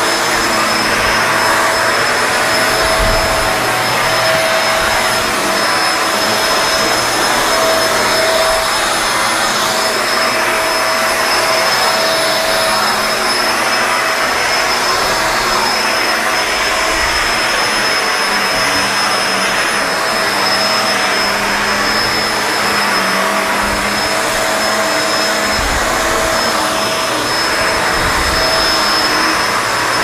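Kenmore Lift-Up Anti-Tangle upright vacuum running steadily while it is pushed over carpet: a constant rush of airflow with a steady whine on top.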